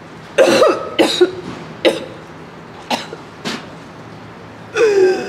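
A woman acting out choking on poison: a string of harsh coughs and gagging gasps, loudest in the first second or two, then a strained, falling vocal croak near the end.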